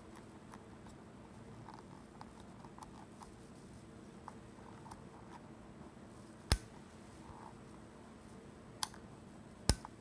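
Olympus OM-D E-M5 Mark II's power switch lever being worked by hand: small faint ticks and scrapes, then three sharp clicks, one about two-thirds of the way in and two close together near the end. The switch is sticking.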